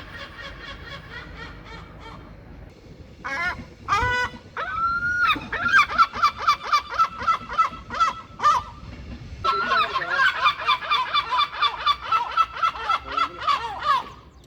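Gulls calling: faint rapid calls at first, then a few loud separate cries about three seconds in, followed by two long runs of quickly repeated laughing notes, about four a second, the first from about five seconds in and the second from about nine and a half seconds to near the end.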